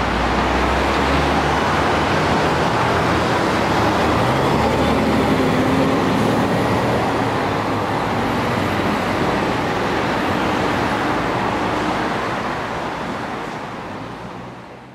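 Road traffic and vehicle engine noise: a steady rush of traffic with a low engine drone that shifts in pitch partway through, fading out near the end.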